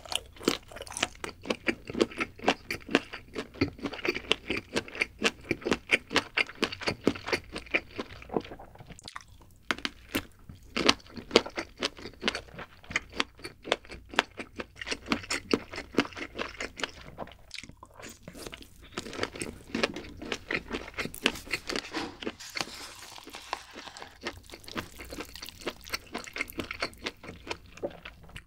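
Close-miked biting and chewing of a sausage on a stick: a steady run of crisp, snappy chewing clicks with a couple of brief pauses.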